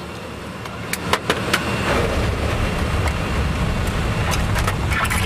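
Steady drone of an aircraft cabin in flight, growing louder about two seconds in. Sharp metallic clicks and knocks sound over it, several about a second in and a cluster near the end, as a hatch panel in the cabin floor is handled.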